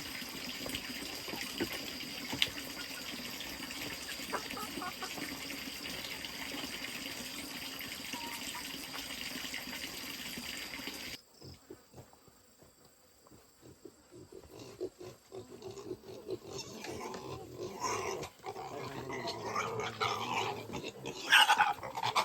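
Steady background hiss that cuts off abruptly about halfway, followed by piglets grunting and squealing, growing busier, with the loudest squeal near the end.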